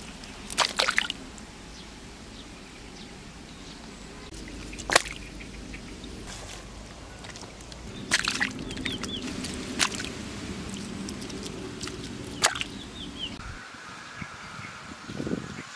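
Catfish dropping down a muddy bank into a water-filled hole trap: about five sharp splashes and drips spread through, the loudest about five seconds in, over a steady low hum that stops near the end.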